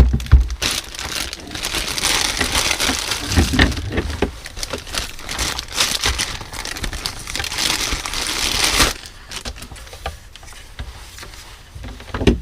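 Packaging crinkling and rustling as it is handled, with a few knocks, for about nine seconds; then it drops to a few soft clicks.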